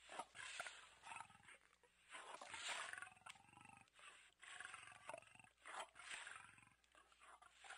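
A big cat gives a run of faint roars and grunts, the longest and loudest about two to three seconds in.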